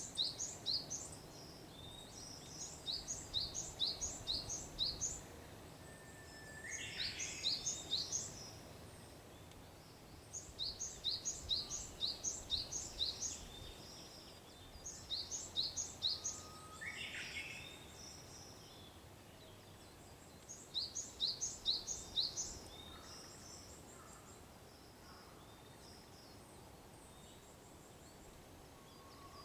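Birdsong at dawn. A Japanese bush warbler gives its whistled song twice, about seven and seventeen seconds in. Between its phrases another bird repeats short bursts of fast, very high, sharp notes every few seconds, over a faint low background rumble.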